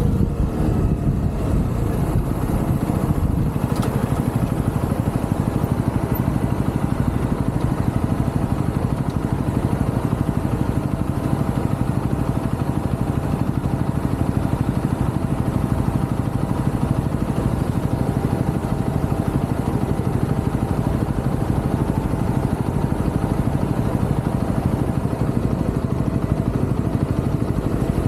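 Single-cylinder engine of a UM Renegade Commando 125 motorcycle slowing in the first second or two, then running steadily at a low, even idle.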